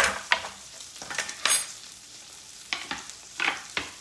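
Thin beef steaks frying in a pan with a steady sizzle, under a string of sharp knocks and a metallic clink as utensils are worked against pan or board.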